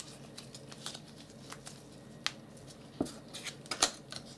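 Gloved hands handling cut-out craft-paper pieces: light paper rustles and scattered sharp little clicks and taps, with a quick cluster of them about three to four seconds in.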